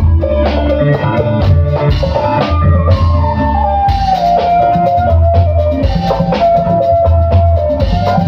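Live band playing an instrumental passage. A drum kit keeps a steady beat under a bass guitar and keyboards, and a held lead melody slides lower about three seconds in.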